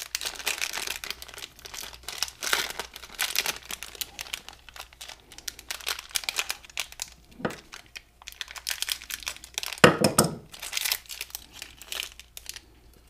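Small clear plastic hardware bag crinkling and crackling in the hands as bolts and spacers are picked out of it, with a sharper crackle about ten seconds in.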